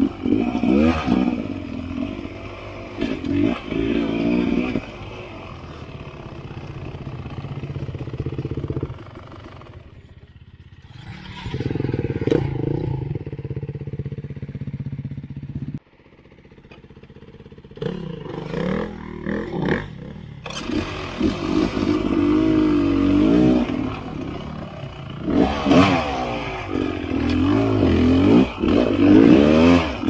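Dirt bike engine revving up and down in short bursts while picking its way over rough, rocky trail. The sound breaks off abruptly about halfway through, then picks up again.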